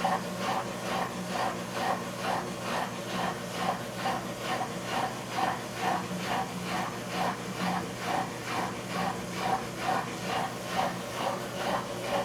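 Brastemp 14 kg washing machine running a wash cycle: a steady low motor hum under a rhythmic swish about two and a half times a second.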